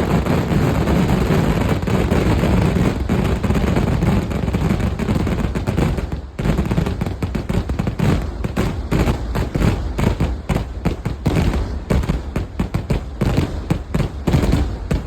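Kerala temple-festival fireworks (vedikkettu) going off in a dense barrage. For about six seconds the bursts run together into a near-continuous rumble. After that comes a fast run of separate sharp bangs, several a second.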